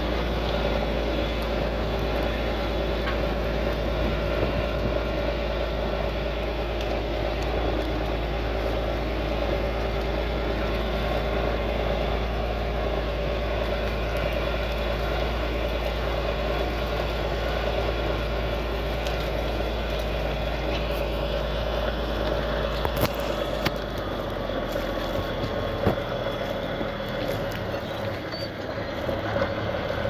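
John Deere 4240S tractor's six-cylinder diesel engine running steadily under load, pulling a mounted plough through the soil.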